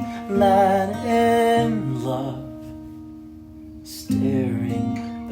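Stripped-down acoustic song: acoustic guitar strummed, with a voice singing long wavering notes. The strums come near the start and again about four seconds in, and the guitar rings on between them.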